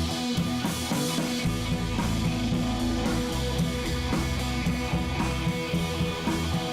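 Rock background music with guitar and drums and a steady beat; the bass and drums drop out briefly and return about a second and a half in.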